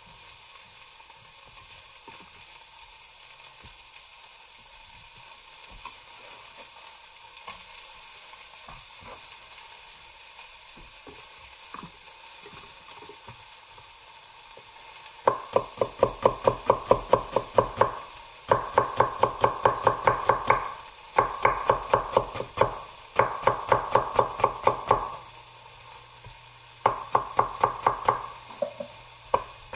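Tosa nakiri knife chopping jalapeño peppers on a wooden cutting board: rapid, even strokes at about five a second, in bursts of a few seconds with short pauses. They start about halfway through; before that there are only a few faint taps.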